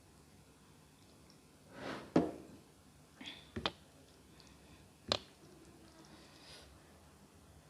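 Food and dishes being handled before eating: a brief rustle and then a sharp knock about two seconds in, a few quick clicks around three and a half seconds, and one more knock about five seconds in.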